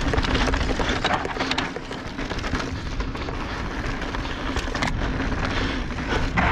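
A 29er mountain bike rolling down a dirt singletrack: a continuous rush and crackle of tyres over dirt and gravel, broken by a few sharp knocks and rattles from the bike as it hits bumps.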